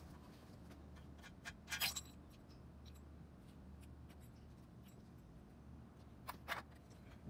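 Quiet room with two brief clusters of small clicks and taps, the louder about two seconds in and another near the end: small objects being handled.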